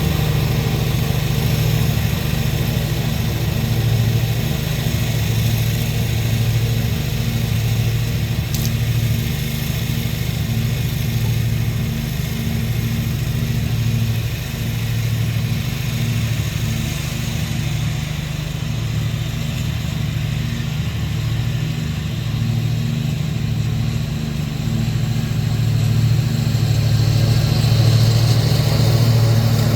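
A 20 hp Briggs & Stratton Intek V-twin mower engine running steadily, just after its oil pan gasket was replaced. It is being run to check for leaks, and it stays dry so far. The engine grows slightly louder near the end.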